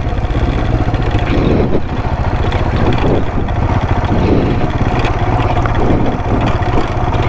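Royal Enfield Himalayan's single-cylinder engine running steadily at low speed on a rough dirt track, with some rougher noise from the ride over the stones.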